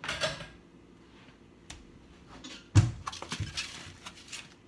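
Kitchen cabinet and things being taken out of it: a rustle as she reaches in, a small click, then a sharp knock just before the middle, the loudest sound, followed by a few lighter knocks and rattles as items are set down on the counter.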